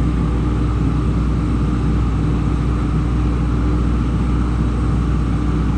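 Steady machine drone with a low hum and a constant tone, unchanging in level.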